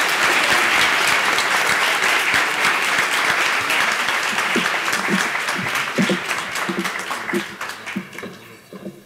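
Audience applauding: dense clapping from many hands that gradually thins and dies away near the end.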